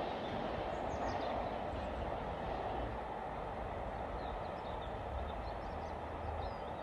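Steady rumble of a Class 60 diesel freight train and its wagons moving away in the distance, slowly fading, with a few faint bird chirps.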